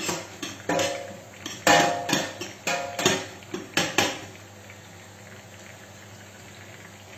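A metal utensil knocking and clinking against a frying pan and pots, about eight sharp strikes in the first four seconds, one ringing briefly. After that only a steady hiss of cubed eggplant frying in oil.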